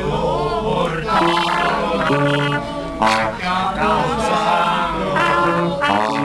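Live folk music: trombones and other wind instruments play held notes while voices sing along in a chant-like way.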